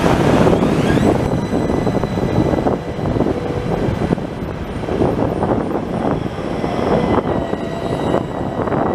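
AnsaldoBreda Sirio light-rail tram rolling past at close range: a steady rumble of wheels on rails, with a faint whine above it.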